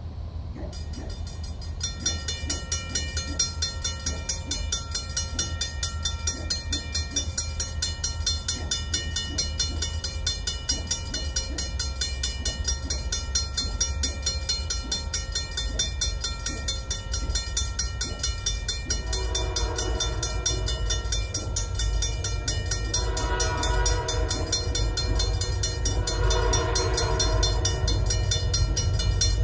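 Railroad grade-crossing bell ringing in a rapid steady rhythm as the crossing signals activate, over the low rumble of an approaching train. About two-thirds of the way in, the locomotive's horn sounds in three long blasts for the crossing.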